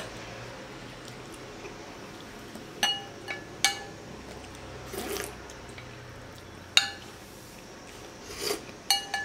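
A glass bowl clinking: three quick sharp clinks about three seconds in and another near seven seconds, each with a brief ringing tone. Softer eating sounds come in between.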